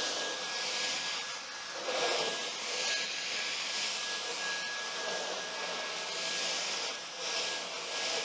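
Dyson Cyclone V10 Animal cordless stick vacuum running on its highest power setting while cleaning a floor mat: a steady high whine over a rush of air, swelling and easing slightly as it is worked over the mat.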